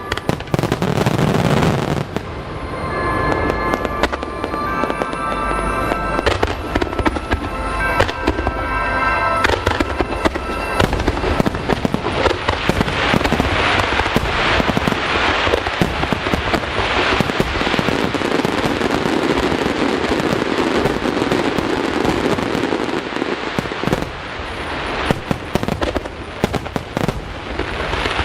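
Aerial fireworks bursting and crackling in rapid, continuous volleys, with music playing along with the display.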